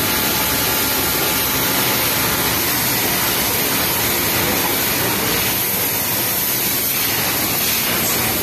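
Steady whirring din of industrial sewing machines running together on a garment-factory floor, with no single stitch rhythm standing out.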